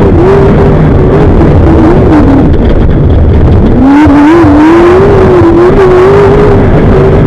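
Off-road desert race vehicle's engine running hard at high revs, its pitch wavering as the throttle is worked over a heavy low rumble. A little past halfway the revs drop sharply, then climb back up.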